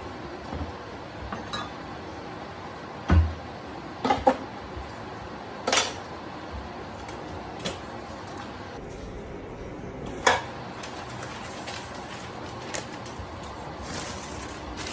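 Kitchen clatter: a handful of separate sharp knocks and clinks of dishes, utensils and cupboard handling, the loudest about three seconds in, over a steady background hiss.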